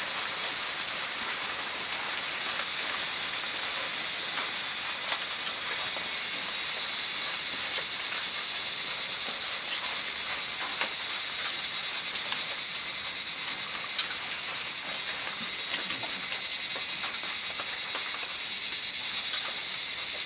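A steady, high-pitched drone of an insect chorus, with a few faint light clinks of spoons on steel plates.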